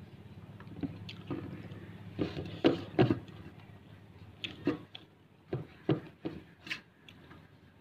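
Fingers mixing and gathering cooked rice in a stainless-steel bowl: wet squishing and scraping with scattered sharp clicks against the steel, loudest about 2.5 to 3 seconds in and again about 6 seconds in.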